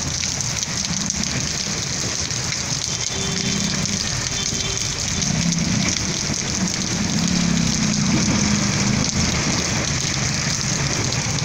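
Steady heavy rain falling on pavement and puddles, with the low sound of a passing mototaxi's motor underneath, strongest around the middle.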